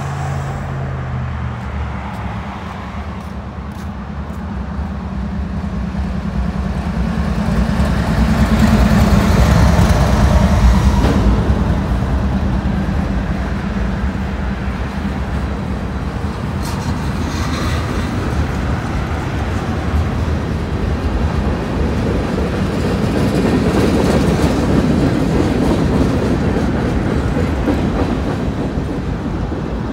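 Norfolk Southern diesel locomotive running as it approaches and passes beneath, loudest about a third of the way in. After it, boxcars keep rolling by with a steady rumble and clatter of wheels on the rails.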